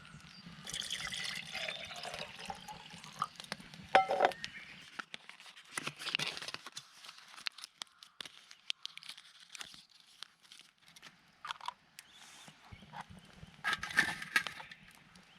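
Liquid pouring and splashing in a few short spells, with scattered clicks and knocks between them.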